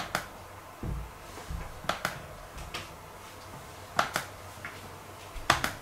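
Clicks from the ASUS FX503VM laptop's touchpad, several sharp clicks mostly in close press-and-release pairs about two seconds apart. There are a couple of soft low thumps about a second in.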